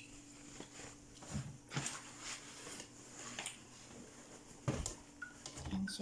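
Soft knocks and rustling of laundry being pushed into the drum of a front-loading washing machine, with a louder knock about three quarters of the way through. A faint steady hum runs under the first two seconds.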